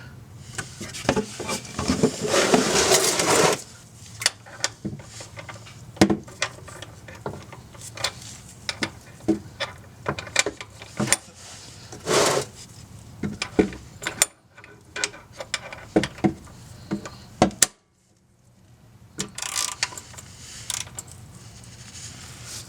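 3/8-inch ratchet clicking and metal tool knocks as a cap wrench loosens the oil filter housing cap of a third-generation Toyota Prius. A dense run of ratcheting comes about two seconds in, then scattered single clicks and taps.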